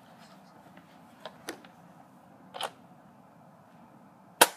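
A Nerf blaster handled with a few faint clicks, then fired with one sharp, loud snap near the end and a smaller click just after.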